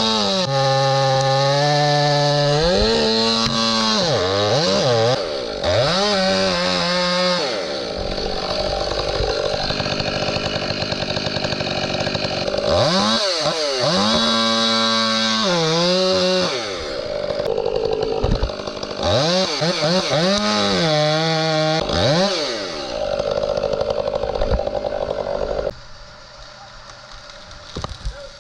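Chainsaw engine revving up and down over and over, with stretches held at high revs in between. It stops about 26 seconds in, leaving a much quieter background with a few faint knocks.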